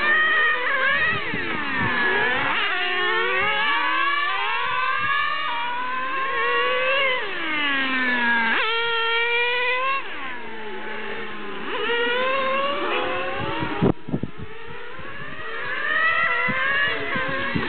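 Several nitro RC cars' small glow-fuel engines running at high revs, their pitches rising and falling and overlapping as they accelerate and slow round the track. A sharp knock about fourteen seconds in.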